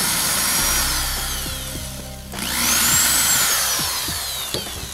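Cordless drill boring into aluminium, run in two long bursts with a short break about two seconds in; the motor whine glides in pitch, rising at the start of the second burst and then falling away. The bit is bent.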